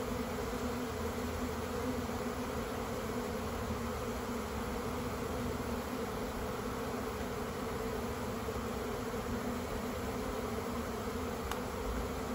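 Honeybees humming steadily from an open hive box where two swarms have just been combined. The hum is steady and even. The bees have not gone nuts and show no fighting.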